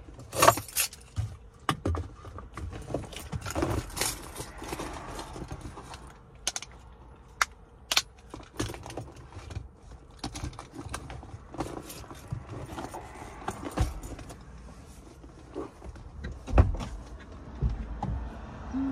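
Small items being handled and rummaged through inside a parked car, including a phone and its cable: irregular clicks, taps and rattles, some with a jingle.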